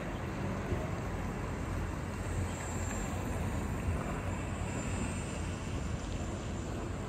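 Outdoor town-square ambience: a steady low rumble with a couple of faint brief knocks.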